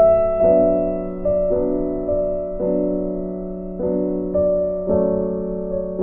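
Background piano music: soft chords struck about once a second, each fading away before the next.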